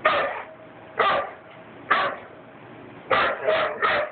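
Doberman barking: single barks about a second apart, then three quick barks near the end.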